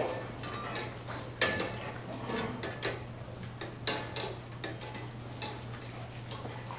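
Irregular light clicks and clinks, the sharpest about one and a half seconds in and again near four seconds, over a steady low hum.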